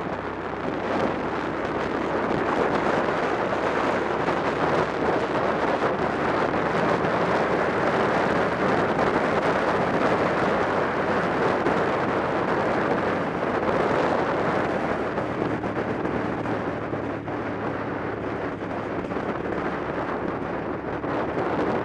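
Wind rushing over the microphone of a motorcycle riding at road speed, with the motorcycle's engine running steadily beneath it; the engine's hum comes through most clearly in the last few seconds.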